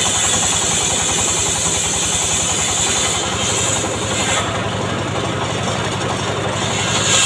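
Engine of a mobile circular saw bench running with a steady, even beat, while the circular saw blade rips an acacia plank with a high-pitched cutting sound through the first few seconds. The cutting sound drops away past the middle as the blade runs free, and cutting starts again at the very end.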